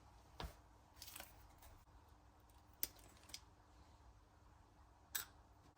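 Near silence with a handful of faint, sharp clicks and light handling noises from small parts being worked on by hand.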